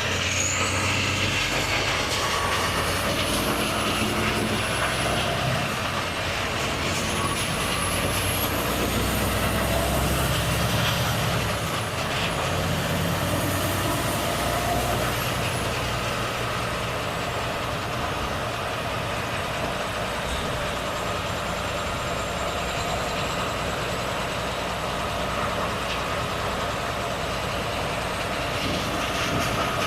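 Volvo FH truck's straight-six diesel engine running steadily under way, with continuous road noise. A faint high whistle rises and falls a few times in the first half.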